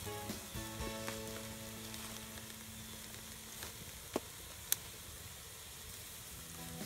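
Squirrel meat sizzling on tinfoil over a wood fire, a steady hiss with two sharp pops about four and five seconds in.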